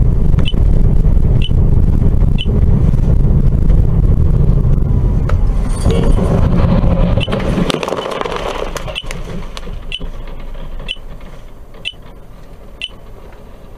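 Steady road and engine rumble inside a moving car, picked up by a dashcam. The rumble fades about halfway through, and a sharp tick repeats about once a second. A brief knock sounds near the end as a car ahead crashes into a roadside pole.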